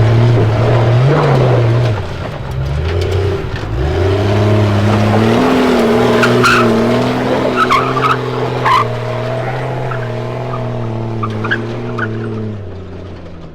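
Supercharged Jeep Cherokee engine running hard under load while crawling up a steep trail climb, a steady drone that shifts pitch in the first few seconds and then holds. A few short squeaks and knocks from the tyres on rock come through in the middle.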